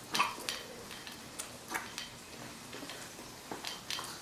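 Faint, irregular light clicks and taps from a baby jumper's metal frame and strap clips as the baby bounces in it.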